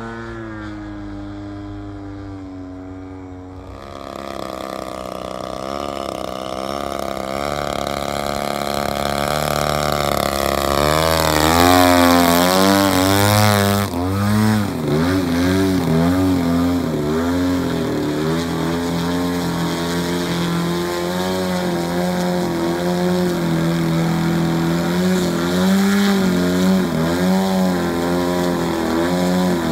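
The 120cc two-stroke gasoline engine of a 105-inch Laser 230Z giant-scale RC plane, an RCGF 120, running in flight. Its pitch falls over the first few seconds, then rises and grows louder as the plane comes close, loudest about twelve seconds in. After that the pitch swings up and down again and again.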